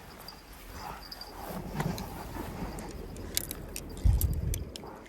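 Fishing gear being handled: light clicks and clinks, several in quick succession past the middle, then a low thump about four seconds in.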